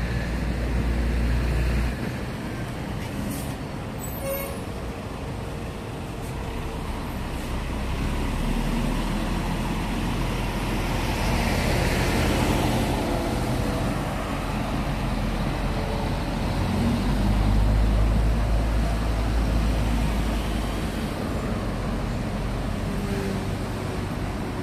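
Road traffic on a jammed city highway: a steady din of slow-moving and idling cars, buses and trucks, rising and falling in level as vehicles move past.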